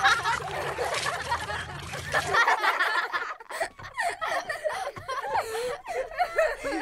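People laughing, with a sudden change to different laughter about two and a half seconds in, where one clip cuts to the next.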